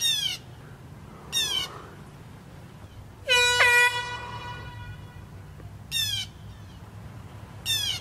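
A single blast of a handheld air horn about three seconds in, a steady blaring tone that fades out after about a second and a half. Four short, high calls that fall in pitch come and go around it.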